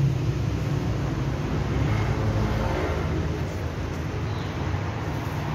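Steady low rumble of a vehicle engine running close by, easing slightly toward the end.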